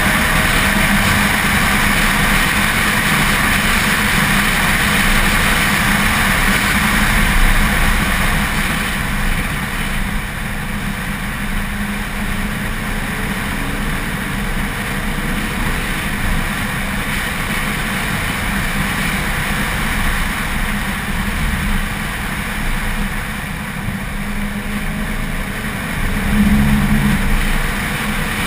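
A car's engine running at track speed under a steady rush of wind and road noise, heard from a camera mounted on the car's rear deck. The engine sound swells briefly near the end.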